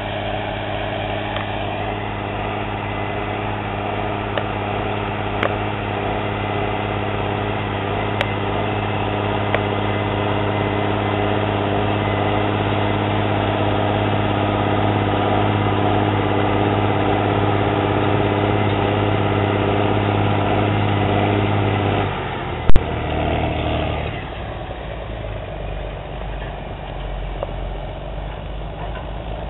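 Rába Steiger 250 tractor's diesel engine running steadily under load as it pulls a disc harrow, a constant drone. About 22 seconds in there is one sharp click, and after it the engine sound is quieter.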